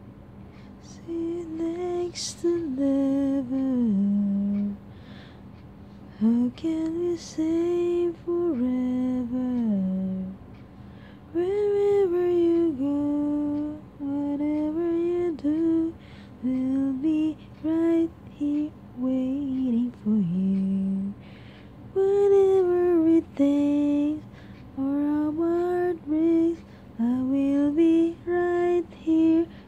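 A woman singing a slow, wordless tune unaccompanied, in short phrases that rise and fall in pitch. A faint steady hum runs underneath.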